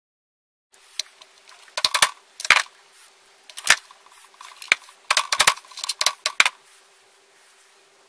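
Clicks and knocks of a hard plastic part being handled against a drill press's steel table: about a dozen sharp knocks, bunched in two clusters, over a faint steady hum.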